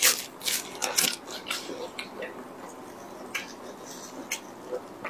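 Disposable plastic gloves crinkling and rustling as hands tear apart a piece of braised meat: a run of short, irregular crackles, thickest near the start and about a second in.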